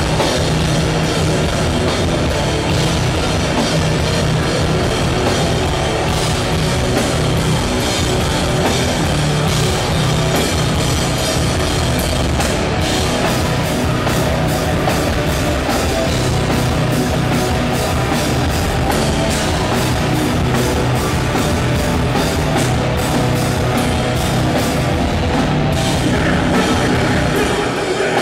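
A live metalcore band playing loud, with distorted electric guitars and a drum kit.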